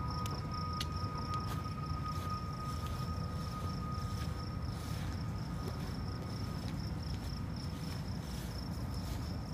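Crickets trilling steadily in a high, even tone over a low steady rumble, with faint light steps through grass.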